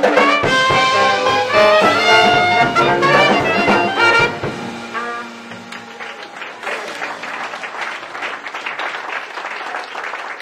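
Ragtime jazz band of trombone, trumpet and clarinet with drums playing its final phrase and closing chord, which ends about four and a half seconds in. Audience applause follows.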